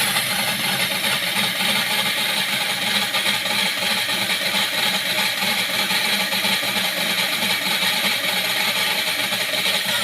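Homemade drill press running steadily at its lowest speed, an 8 mm bit drilling 4 mm metal: a continuous motor hum under a dense cutting hiss.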